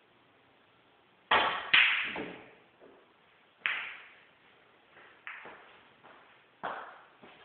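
Snooker balls knocking: the cue tip strikes the cue ball about a second in, then a louder clack as the cue ball hits an object ball. Over the next few seconds fainter single clicks follow, a second or so apart, as the balls hit cushions and each other.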